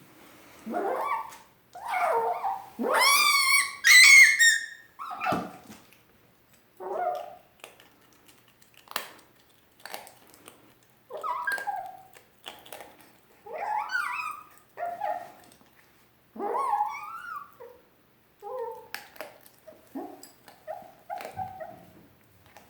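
A dog's string of high, wavering squeals and whines with short grumbling calls between them, the loudest squeal about three to four seconds in. The noise is vocal protest at the food being taken away, a fox-like sound.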